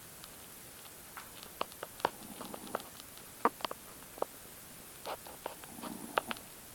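Snoring: a soft, low, rasping breath at about two and a half seconds in and again near the end, with many short sharp clicks and ticks scattered between the breaths.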